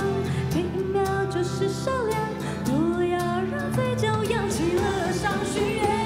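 A woman singing a Mandarin pop song into a microphone, backed by a live band with keyboards.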